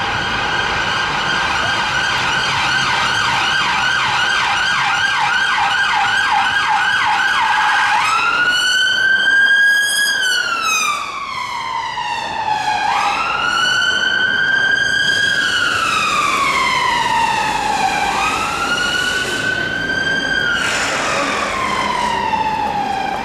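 Emergency vehicle siren on a rapid yelp, switching about eight seconds in to a slow wail that rises and falls in cycles of roughly five seconds.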